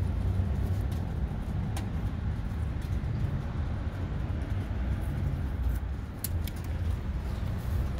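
A steady low rumble with a few faint, sharp clicks from fingers picking an old gasket off the idle air control valve's metal mounting face.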